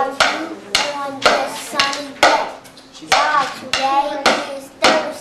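Children clapping in rhythm, about two claps a second, with young voices chanting along on each beat.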